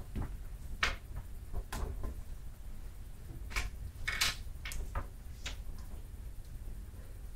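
Quiet classroom with a low steady hum and a scattering of short scrapes, taps and rustles, the loudest about four seconds in, from students writing on paper and shifting at their desks and chairs.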